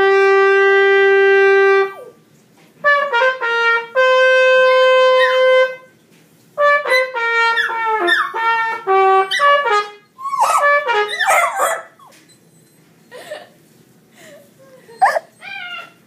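Trumpet played in long held notes and short runs of notes, stopping about ten seconds in. Wavering, sliding cries and a few faint yelps follow.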